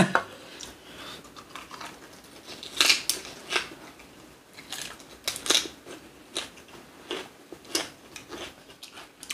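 Eating at the table: chewing with about half a dozen sharp clicks and crunches scattered through.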